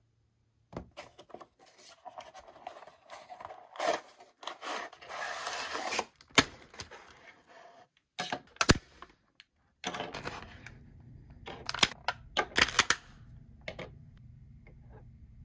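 Toy packaging being handled and opened by hand: stretches of rustling and tearing, broken by a few sharp clicks and taps.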